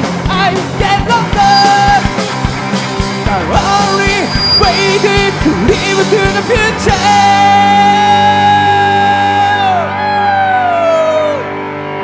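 Live rock band playing loud: electric guitars, bass guitar and drums, with a male vocalist singing. About seven seconds in the drums stop and the chord is held ringing, and near the end a high held note slides down in pitch.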